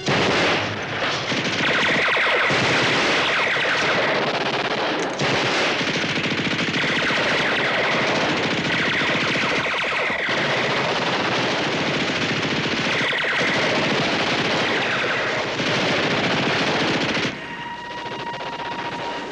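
Sustained automatic-weapon fire, machine guns and rifles shooting in rapid continuous bursts for about seventeen seconds, then cutting off abruptly near the end.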